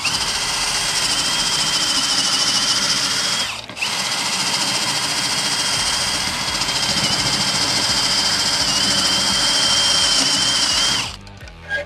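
Cordless drill running a step bit into a metal alternator tensioner arm, enlarging its bolt hole into an oblong slot. The motor's steady high whine drops out briefly about three and a half seconds in, then runs on until it stops near the end.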